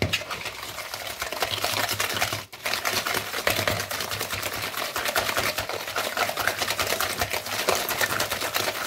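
Coil whisk beating a liquid mixture of egg and melted butter in a bowl: a fast, steady rattle of wire clicking against the bowl, with a brief pause about two and a half seconds in.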